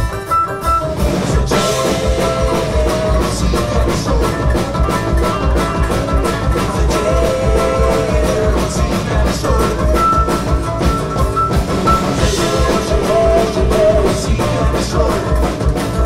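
Live band playing heavy metal on bluegrass instruments: acoustic guitar, banjo and double bass over a drum kit, with a steady driving beat. The full band comes in loudly right at the start.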